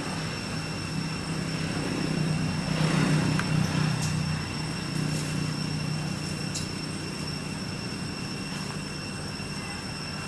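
A steady low engine drone that swells for a couple of seconds and then eases off, under a steady thin high-pitched whine.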